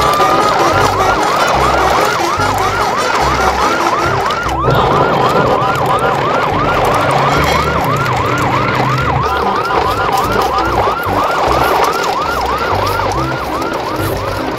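Emergency-vehicle siren in fast yelp mode: one rising sweep at first, then a rapid up-and-down wail about three times a second, with a low pulsing beat beneath.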